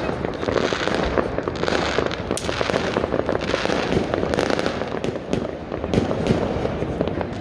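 Many homemade fireworks and firecrackers going off across a city at once: a dense, unbroken crackle of bangs near and far, with no pause.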